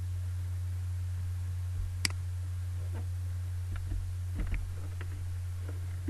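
Steady low electrical hum with a single sharp click about two seconds in and a few soft knocks around four and a half seconds. The clicks fit a computer mouse being clicked on the lecture slides.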